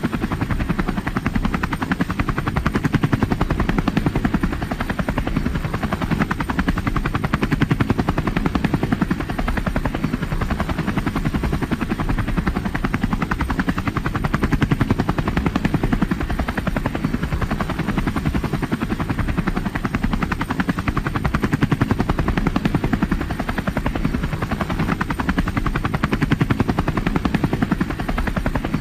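Helicopter in flight: the fast, steady chop of its rotor blades over the turbine's noise, swelling and easing slightly every few seconds.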